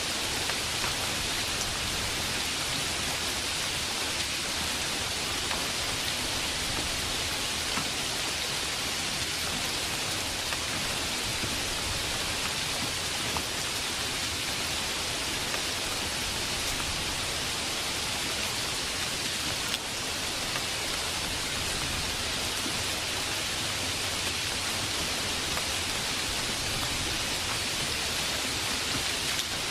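Steady rain falling: an even hiss of rain with scattered drop ticks and no letup.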